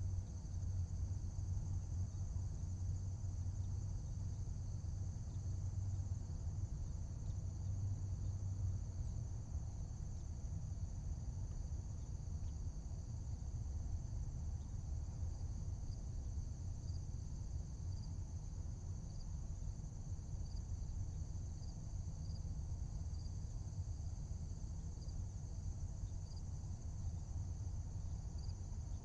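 Steady high-pitched insect trilling, cricket-like, over a low steady rumble. In the second half, faint short chirps repeat about once a second.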